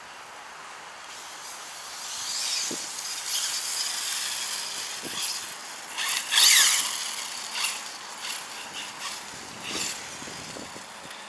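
Arrma Senton RC truck's electric motor whining in repeated bursts as it accelerates and lets off across the grass; the loudest burst, a rising whine, comes about six and a half seconds in.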